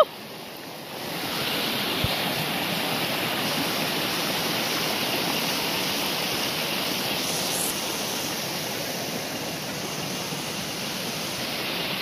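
Steady rush of a shallow rocky stream tumbling over stones.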